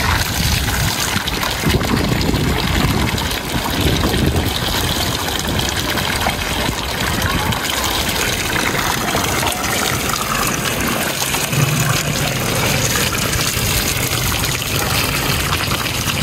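Water gushing steadily out of a solar water heater tank as it is flushed. The water is now running clear, a sign that the alum-laden sediment has been rinsed out.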